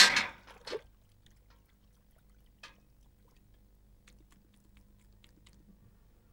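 A man's loud, drawn-out yawn that ends about half a second in, with one more short burst just after. Then near silence: a single click about two and a half seconds in and a few faint ticks over a low hum.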